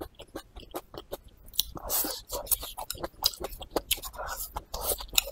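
Close-miked eating sounds: irregular wet mouth clicks and smacks of a person chewing and biting, starting on a mouthful of stir-fried sweet potato leaf tips.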